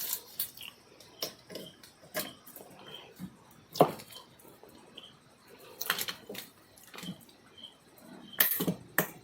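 Scattered sharp clicks and knocks from a newly wired 16 A switch-and-socket board being handled and switched while it is tested. There are about half a dozen at uneven intervals, the loudest about four seconds in.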